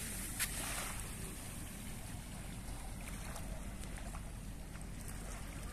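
Small waves washing softly onto a sandy shore, under a steady low rumble of wind on the microphone.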